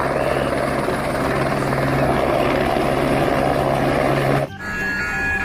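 Helicopter sound, a steady rotor-and-engine noise with a low hum, that cuts off abruptly about four and a half seconds in; a short tune starts right after.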